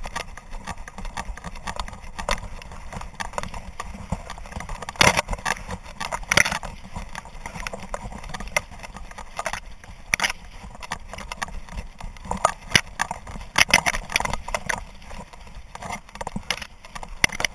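Camera mounted on a moving hunting dog: irregular knocks and rattles from the camera mount and collar hardware, over a steady rumble of wind and dry grass brushing past the microphone. Several sharper knocks stand out in the middle and later part.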